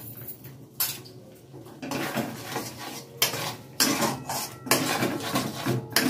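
Metal spatula scraping and stirring a thick spice paste in a metal kadai, clinking against the pan's sides. Quieter for the first two seconds apart from one clink, then brisk, repeated stirring strokes.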